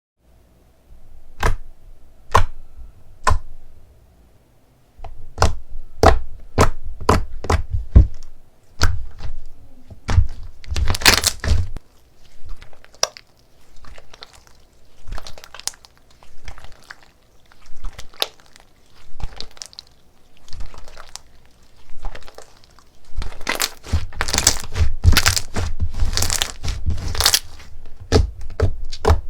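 Slime being squeezed and pressed by hand, giving a run of sharp crackles and pops in irregular bursts that grow denser near the middle and again near the end.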